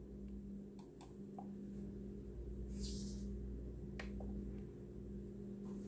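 Quiet room tone with a steady low hum, and a few faint clicks from buttons being pressed on a radio-control transmitter, around a second in and again about four seconds in. A brief soft hiss comes near the middle.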